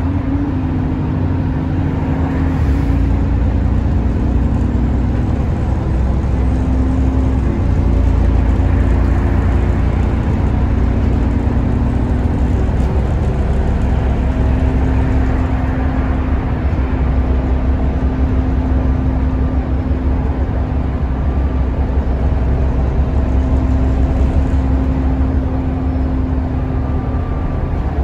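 An ADL Enviro400 (E40D) double-decker bus heard from inside the passenger saloon while under way: a steady low engine and road drone with a humming tone that shifts pitch a few times as the bus changes speed.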